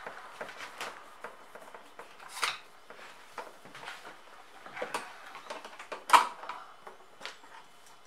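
Scattered small clicks and taps of a screwdriver working Torx screws out of the rim of a Maytag dishwasher's plastic inner door, with two louder knocks about two and a half and six seconds in.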